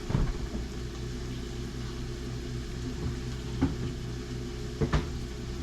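Steady low hum of a running kitchen appliance, with a few light knocks and clinks of kitchen things being handled.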